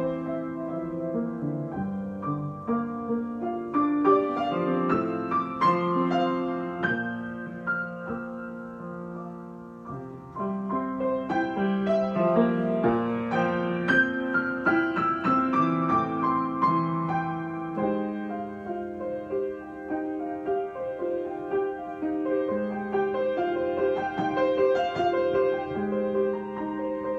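Solo piano improvisation: chords and melodic lines played freely, easing off about eight seconds in and picking up again a couple of seconds later.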